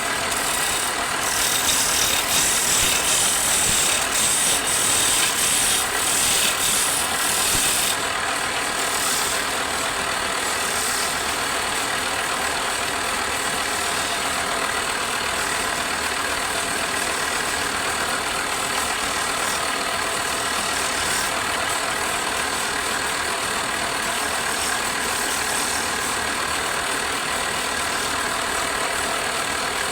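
Wood lathe running steadily, with a brighter, louder hiss for the first eight seconds or so before it settles into an even hum.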